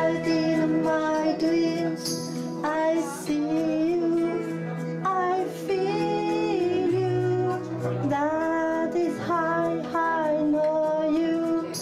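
Karaoke: a voice singing a pop song into a microphone over a backing track with a steady beat.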